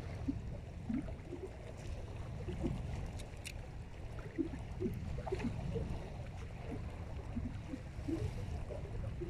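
Small waves lapping and gurgling irregularly at the water's edge, over a steady low wind rumble on the microphone.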